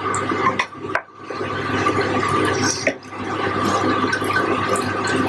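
Chicken curry cooking in a pan on a low flame, its pieces sizzling and bubbling in the water coming out of the chicken. A few short knocks sound in the first three seconds.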